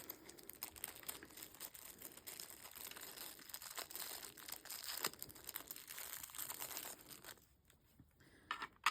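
Packaging crinkling and rustling as it is handled, a dense crackle that stops about seven seconds in.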